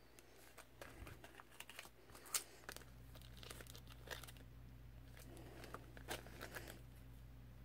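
Faint crinkling and clicking of the clear plastic sleeves that hold metal cutting dies as the packets are handled and shuffled, with one sharper crackle about two and a half seconds in.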